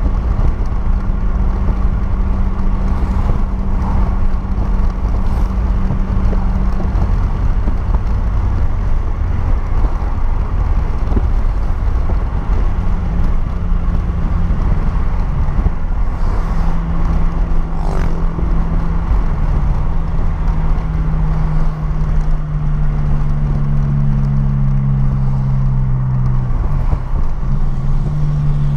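Renault Clio's 1.6 16V K4M four-cylinder engine and exhaust droning steadily while driving at speed, over tyre and road noise. The engine note shifts lower and higher a few times in the second half, with a brief dip near the end.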